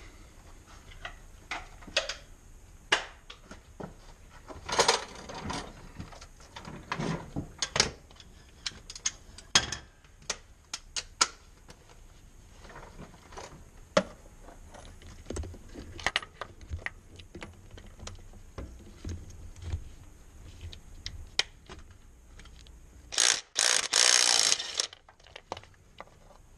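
Scattered metal clinks and ratchet clicks of a 22 mm socket on a long extension, working at the knock sensor in the engine block. A loud rattling burst of about two seconds comes near the end.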